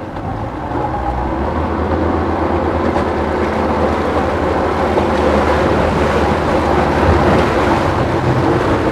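Speedboat engine running steadily as a low hum, under a steady wash of wind and water noise.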